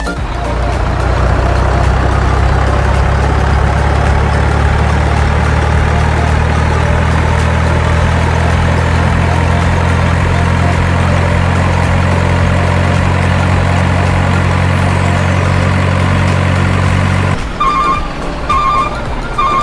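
Heavy truck engine idling steadily, cutting off abruptly near the end, followed by a reversing alarm beeping at an even pace.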